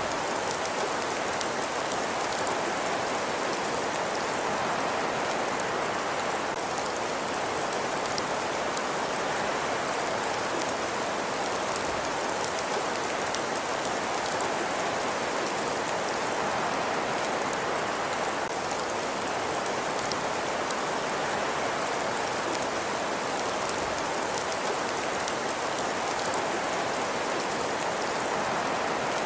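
Fireplace ambience: a steady, even hiss of a burning fire with many small, faint crackles and no break.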